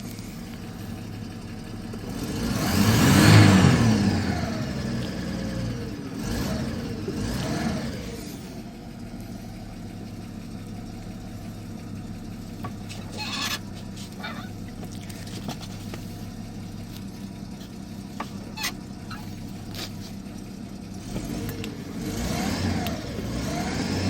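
Old Chevy pickup truck engine running. It is revved hard once about three seconds in, blipped twice a few seconds later, then settles to a steady idle. It revs up and down again near the end.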